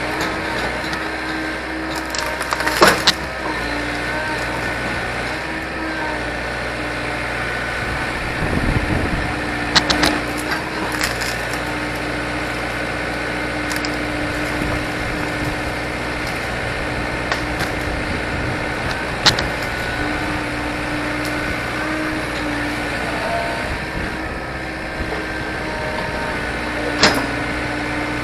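A machine engine running steadily, its pitch dipping slightly now and then as if under load, with a few sharp knocks and cracks spread through it.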